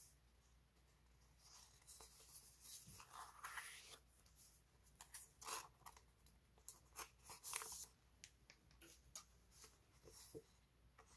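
Paper sticker sheets handled and shuffled: soft rustles and light crinkles of paper, coming in a run of short bursts in the middle and loudest about seven and a half seconds in.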